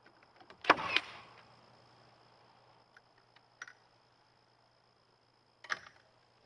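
Sharp knocks from carpentry work on a wooden building: two loud ones in quick succession near the start, a few light clicks, then another sharp knock near the end.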